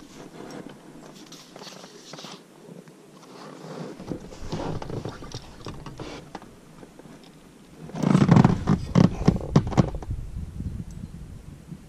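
Close handling noises: soft rustling and scraping, then a burst of sharp knocks and thumps about eight seconds in, as a caught fish and a tablet are handled against the rubber of an inflatable boat.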